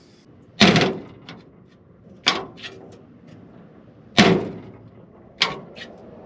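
Steel driver's side door of a WWII half-track being shut on its newly fitted latch again and again: four sharp metal clacks, one every one and a half to two seconds, some followed by a smaller click of the catch.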